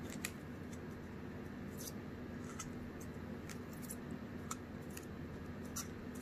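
Small crisp clicks and crinkles, scattered irregularly, as a paper sleeve is wrapped around a small plastic cup by hand. A steady low background hum runs under them.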